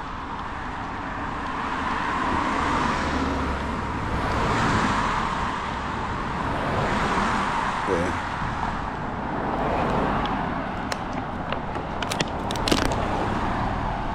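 Cars passing one after another, their tyre and engine noise swelling and fading every few seconds, with a few sharp clicks near the end.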